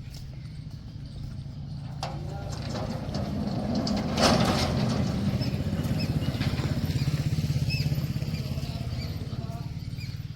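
A motor vehicle's engine running as it passes, growing louder to a peak about four seconds in, then slowly fading.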